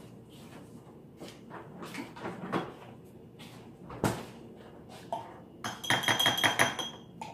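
Metal spoon clinking fast against a glass jar while stirring, about six strikes a second, near the end. Before it come a few scattered knocks of things handled on the counter, the sharpest about four seconds in.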